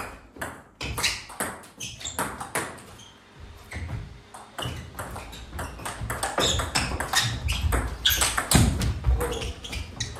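Table tennis rally: the ball clicking off the bats and the table in quick succession. Heavier low thuds come in the second half.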